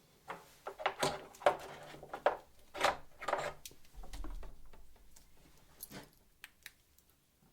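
Irregular clicks, knocks and short scrapes of hands working inside a desktop PC case at the graphics card, prodding at its stiff slot release latch. The sounds are busiest in the first few seconds, with a dull low rumble about four seconds in, then thin to a few isolated ticks.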